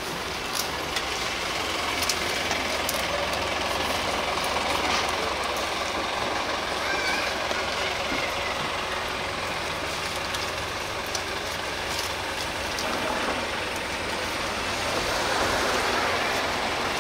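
Steady street traffic noise, with vehicles running past and one growing louder near the end, and faint voices in the background.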